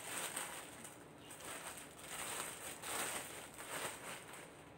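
Clear plastic bag crinkling as it is handled and opened, in several bursts of rustling.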